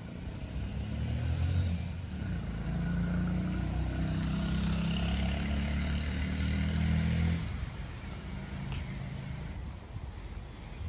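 A motor vehicle's engine running close by: a deep, steady hum that builds and rises about a second in, holds, then drops away suddenly after about seven and a half seconds, with a hiss above it.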